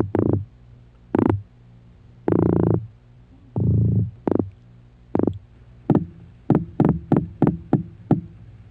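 Male weakfish drumming with its swim bladder: a courtship call. Short knocking bursts come at uneven gaps, with two longer buzzy ones near the middle, then quicken to about three a second near the end.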